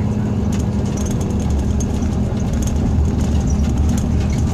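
Scania K340 coach engine and drivetrain running at speed, heard from inside the cabin as a steady low drone, with light clicks and rattles over it.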